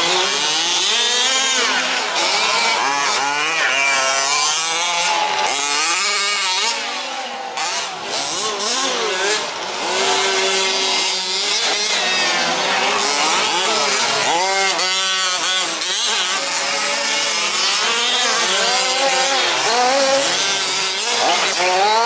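Several 1/5-scale 4WD RC trucks' small two-stroke petrol engines racing, with overlapping buzzing engine notes that rise and fall in pitch as they rev up and ease off.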